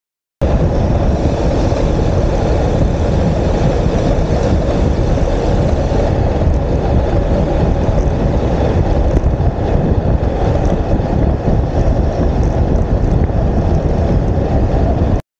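Wind rushing and buffeting over the camera's microphone on a bicycle moving fast, at about 40 km/h: a loud, steady rush that starts abruptly about half a second in and cuts off abruptly just before the end.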